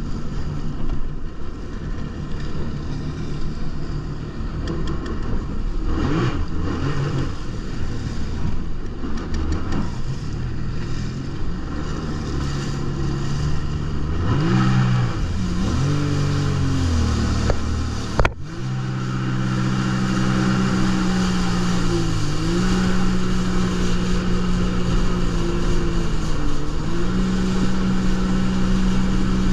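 Jet ski engine running at low speed. Its pitch rises and falls with throttle changes about halfway through, then after a brief break it holds a steady note, dipping twice.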